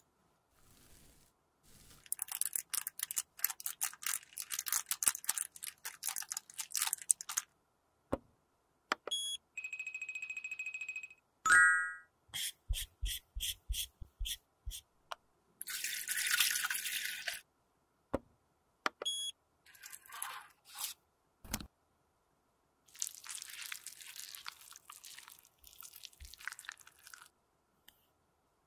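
Close-miked handling sounds from cosmetic crafting: a metal spatula scooping and scraping coarse pigment granules, and plastic bottle caps and lipstick tubes clicking and tapping, in a string of short, separate bursts. A steady high tone sounds for about a second and a half around the middle, and a quick run of short tones follows it.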